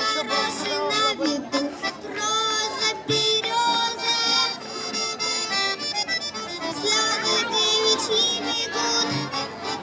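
Accordion playing folk music.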